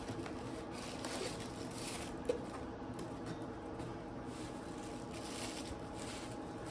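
Faint rustling and crinkling of paper packing as a mug is unwrapped and shredded newspaper packing is pushed about, with one small knock about two seconds in.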